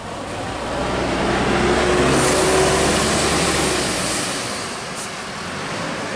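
A heavy road vehicle passing close by. Its engine noise swells from about a second in, peaks with tyre hiss around two to three seconds, and then fades away.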